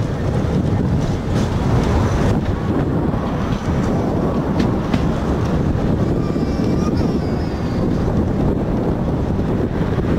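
Sóller tram's wooden carriage running along the rails: a steady rumble with a few sharp clicks, mixed with wind buffeting the microphone.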